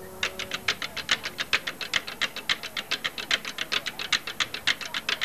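A few people clapping, a thin patter of quick, uneven claps at the end of a band's performance.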